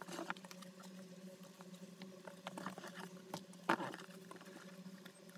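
A sewn fabric bag being handled and turned right side out through its zipper opening: irregular rustling and scraping of cloth with small clicks and ticks, the loudest scuff a little before the four-second mark. A steady low hum runs underneath.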